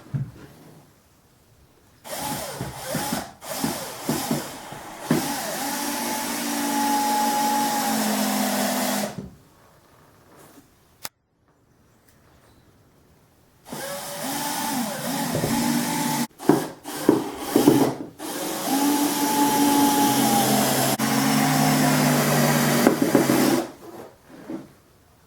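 A power tool running in two long spells of several seconds each, with short stutters at the start of each spell and its pitch shifting in steps while it runs.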